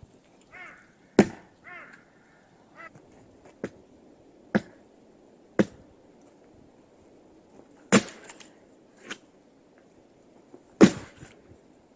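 An axe splitting firewood: about five sharp chopping strikes a few seconds apart, with smaller knocks of wood between them. A crow caws twice near the start.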